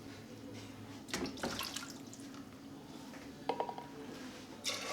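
Water being poured from a jug into a cooking pot of beans: dripping and a few short knocks, then the pouring starts again near the end.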